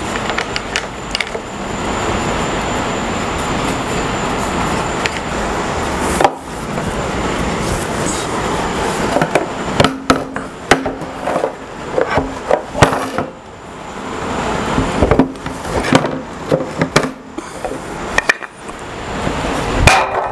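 A steady rushing mechanical noise for about six seconds that stops abruptly, then a string of uneven knocks and clatters as wooden blocks and metal parts are set down and handled on a router table top.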